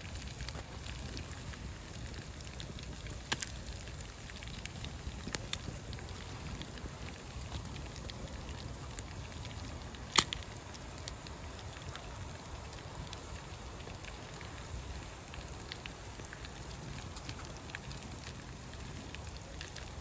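Campfire crackling: scattered small pops and one sharp snap about ten seconds in, over a steady low rumble.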